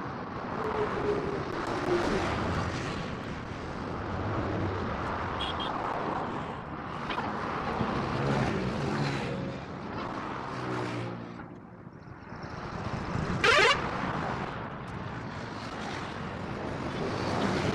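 Highway traffic passing, vehicles swelling and fading one after another, with engine tones from passing trucks and cars. About three-quarters of the way through, a short loud rising tone stands out.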